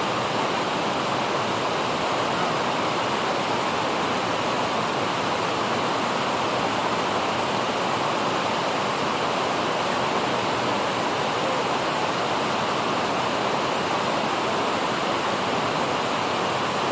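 Steady rush of water pouring through a river dam's sluice gate, an even roar that does not change.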